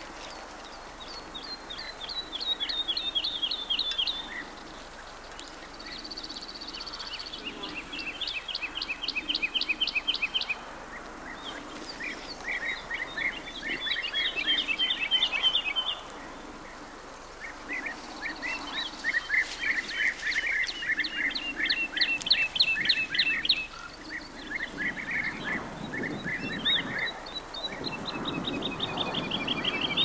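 Songbirds singing a series of long trills, each a fast run of repeated notes lasting a few seconds, with short pauses between them; at times two trills overlap at different pitches.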